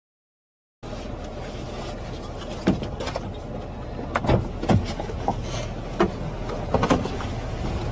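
Vehicle cabin noise that starts abruptly about a second in: a steady low rumble with several sharp, irregular knocks over it.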